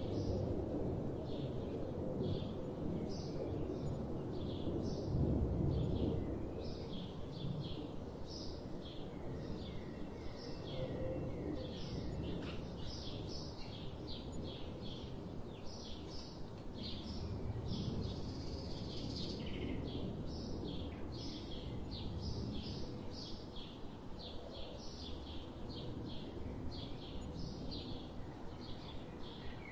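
Small birds chirping: short, high chirps repeated about twice a second, over a steady low background rumble.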